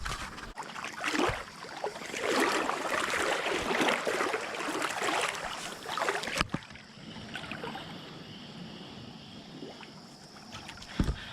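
Creek water splashing and sloshing for about six and a half seconds, then a sudden change to a quieter, steady flowing hiss.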